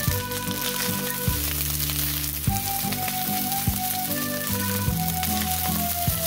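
Egg fried rice sizzling in a frying pan, a steady crackling hiss. Background music with long held notes and a regular beat plays over it.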